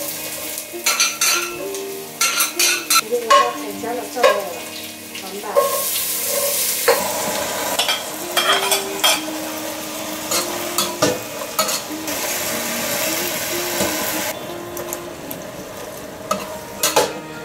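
Chopped vegetables and garlic frying in oil in a stainless steel pot, with a metal ladle clinking and scraping against the pot as it stirs. A loud, steady sizzle takes hold about five seconds in, as the vegetables go into the hot pot, and eases off a few seconds before the end.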